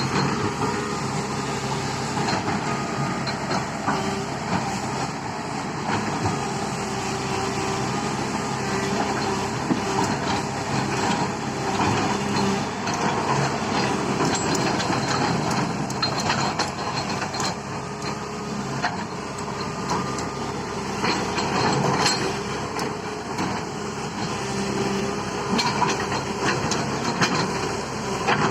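Tata Hitachi 210 Super Plus excavator's diesel engine running steadily while working, with scattered clanks and knocks throughout.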